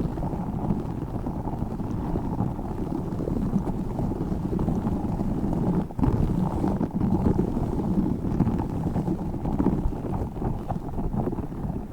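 Tiny spiky orbeez balls being handled close to the microphone: a dense, steady patter of small clicks and rustles, muffled and low, with a brief lull about six seconds in.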